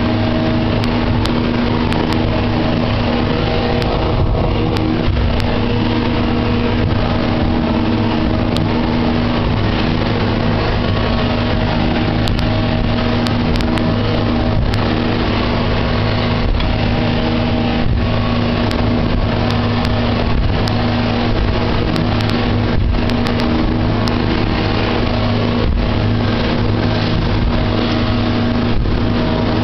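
KS-700 motor launch's engine running at a steady speed, its pitch unchanging, with occasional short sharp knocks.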